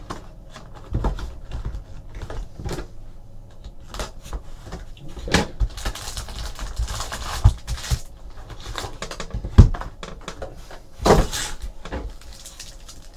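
A cardboard hobby box of trading cards being handled and opened and its foil packs pulled out and stacked on a table: scattered taps, knocks and rustling, with a few louder thumps in the second half.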